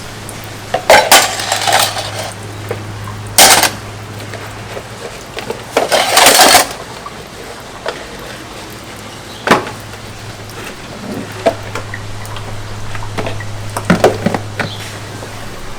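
Dishes and pots being handled during dishwashing: a series of separate clinks and clatters, the longest about six seconds in, over a low steady hum.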